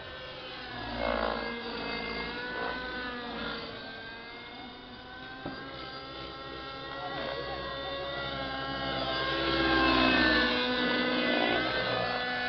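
Radio-controlled model helicopter flying, its motor and rotor whine rising and falling in pitch as it manoeuvres. It grows louder about ten seconds in as it comes close.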